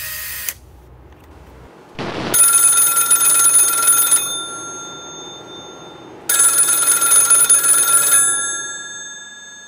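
A telephone's bell rings twice, each ring about two seconds long with a pause between. Each ring is a fast, even rattle that lingers and fades after it stops. A short rushing noise comes just before the first ring.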